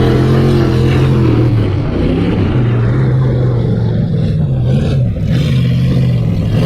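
Vehicle engine running loudly, its pitch wavering and dipping briefly a couple of times as the throttle changes.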